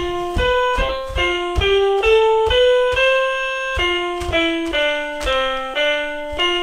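Children's floor piano mat sounding electronic piano notes one after another as its keys are stepped on, a string of single notes about two a second, each starting with a soft thud.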